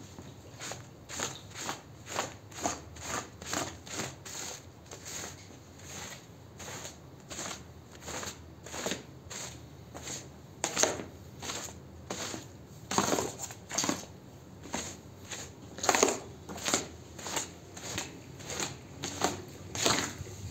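Squeegee scraping soapy foam and water out of a wet rug pile in quick repeated strokes, about two a second, with a few louder, longer strokes in the middle. Each stroke makes a wet swish.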